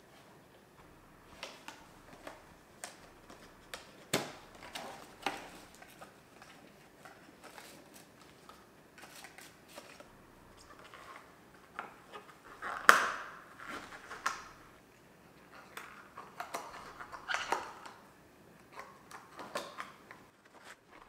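Handling sounds from fitting balloon-style rubber dog boots onto a dog's paws on a tile floor: scattered light clicks and rustles, with one louder sharp noise about thirteen seconds in.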